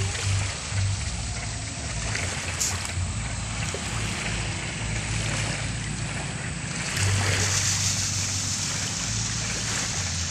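Small waves lapping and splashing on a rocky shore, with a low rumble coming and going.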